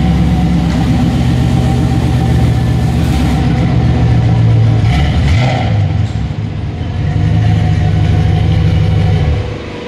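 LS V8 in a 1986 Chevrolet C10 running through its new dual-muffler exhaust, steady with a brief dip about five seconds in. The engine cuts off near the end.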